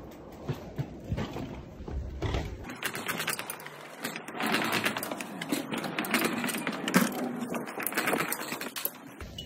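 Rapid clicking of a bicycle's freewheel hub as a road bike is wheeled along, mixed with knocks and rattles of the bike. The clicking gets denser about three seconds in.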